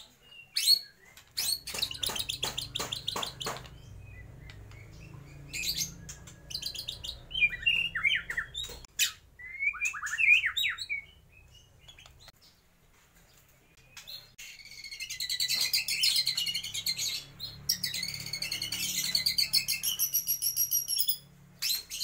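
White-rumped shama singing in bursts: rapid buzzy trills, short sweeping whistles, then long high warbled phrases after a brief pause. Its song is loaded with mimicked calls, which the keeper names as lovebird, sooty-headed bulbul and spiderhunter.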